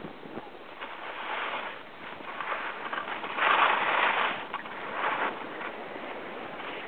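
Skis hissing and scraping over groomed snow, swelling in bursts with each turn, loudest about three and a half seconds in.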